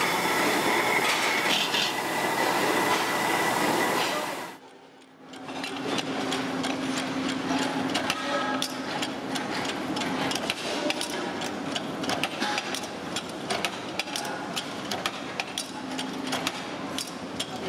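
Motor-driven buffing wheel polishing an aluminium pressure-cooker lid: a loud steady rushing noise with a thin high whine. It fades out at about four and a half seconds, and a mechanical power press takes over, quieter, with rapid irregular clattering clicks over a low hum.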